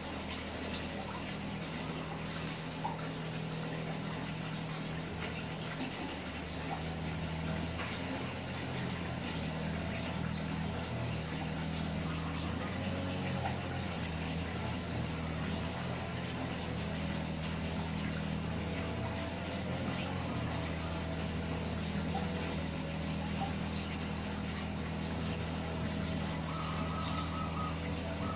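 Steady rushing noise over a low, steady hum, with no clear breaks.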